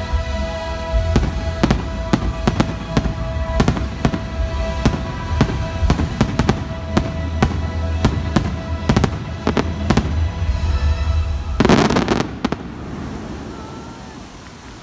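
Aerial fireworks shells bursting in quick succession, many sharp bangs over a steady low rumble, with music playing underneath. About twelve seconds in comes the loudest burst, a dense crackle, and then the sound dies away.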